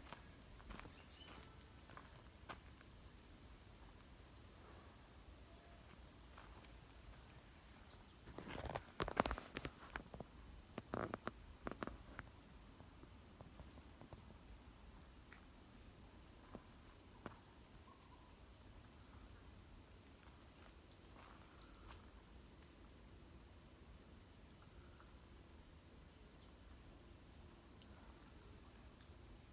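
Steady high-pitched chorus of insects chirring. A short run of footsteps comes about nine to twelve seconds in.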